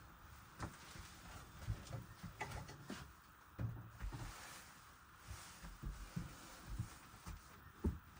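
Irregular soft knocks and low thumps, as of things being handled and set down, with one sharper knock near the end.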